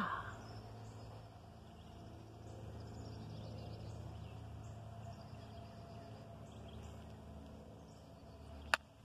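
Quiet rural outdoor ambience: a steady low hum with faint scattered high sounds. A single sharp click comes near the end, and the hum cuts off with it.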